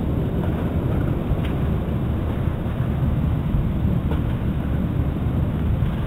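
Steady low rumbling outdoor background noise with no distinct event in it.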